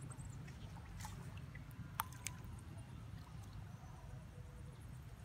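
Faint water sounds of a macaque swimming through a pond, with a few sharp ticks, the loudest about two seconds in, over a steady low rumble.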